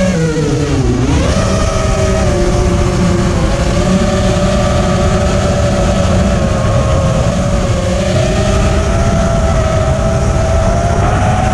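Buzzing whine of an FPV racing quadcopter's four Racerstar 2306 2400kv brushless motors on 4S, spinning three-blade 5-inch props, heard from the onboard camera. The pitch dips and climbs sharply in the first second or so, holds fairly steady, then rises again near the end as the throttle comes up, over a low rushing noise.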